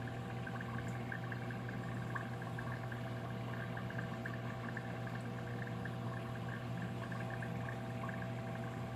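Steady hum of an aquarium pump running, with a fine buzzing edge above the low drone.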